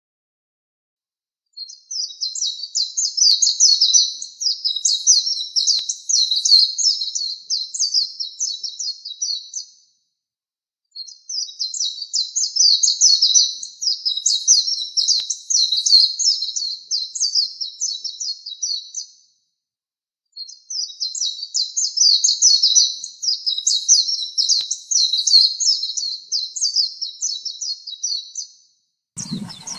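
Oriental white-eye singing: three long bouts of rapid, high twittering warbles, each about eight seconds, with short silences between them. A different, noisier sound starts just before the end.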